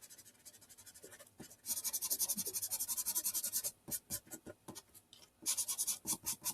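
A marker scribbling quickly back and forth on paper, colouring in an area, about ten strokes a second. Two spells of fast scribbling come with slower separate strokes between them.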